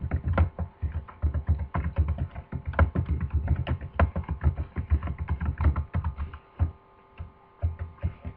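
Typing on a computer keyboard: a quick run of key clicks that thins out to a few scattered presses in the last two seconds.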